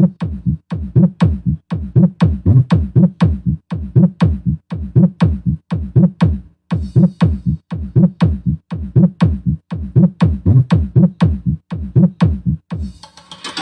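Dance remix music for a sound-system check: a fast run of heavy bass kick drums, each thump dropping in pitch, about three to four a second. Near the end the kicks stop and a hissing swell rises.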